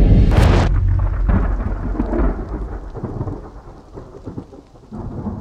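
Thunder sound effect: a deep rumble with a sharp crack about half a second in, then crackling that dies away.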